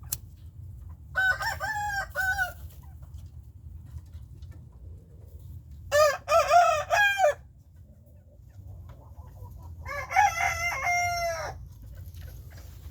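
Gamefowl roosters crowing: three separate crows, each lasting about a second and a half, roughly four seconds apart.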